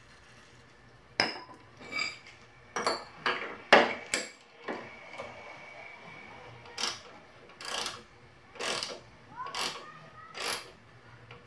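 Sharp metal clicks and knocks as a spark plug thread-repair tool is handled at a mower engine's stripped spark plug hole, then a wrench works the tool in short strokes, a scraping rasp about once a second.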